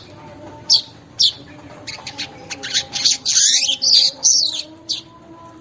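Weaver (manyar) song: two sharp, high, downward-slurred notes in the first second and a half, then a fast, buzzy, chattering run of notes through the middle, closing with another single sharp note.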